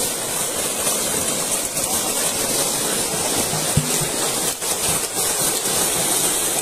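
Heavy, continuous splashing of many fish thrashing and leaping in shallow water, crowded together inside a hauled-in seine net.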